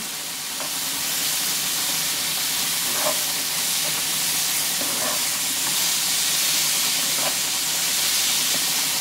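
Chopped tomatoes, onions and spices sizzling in a frying pan with a steady hiss, freshly added tomatoes cooking down until they soften, with a few light scrapes of a metal spoon stirring them.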